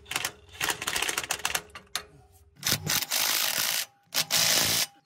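DeWalt XR cordless impact hammering a large bolt home through a socket. It starts as a rattle of rapid blows, then gives three short bursts of about a second each in the second half as the mounting-plate bolt is run tight.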